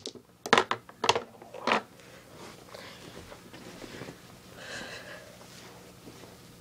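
Balls of a mini tabletop pool table clacking against each other and the cushions after a cue shot: about six sharp clicks in the first two seconds, then quieter rolling.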